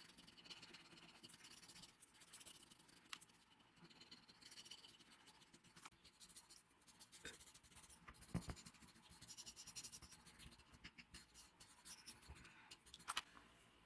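Faint scratching and rubbing of hand work on wood, with scattered small clicks, a single knock about eight seconds in and a couple of sharp clicks near the end.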